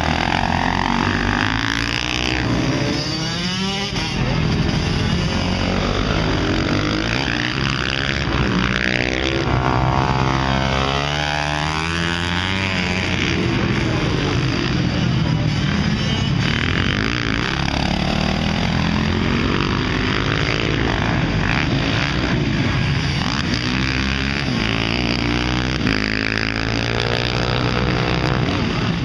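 Supermoto motorcycles racing past, their engines revving hard and easing off through the gears. The pitch climbs and drops over and over as several bikes come and go.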